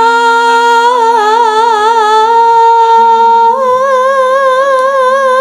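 A sinden, a female Javanese gamelan singer, singing long held notes into a microphone with a wide, even vibrato, stepping up to a higher note about halfway through. A lower steady tone sounds beneath her.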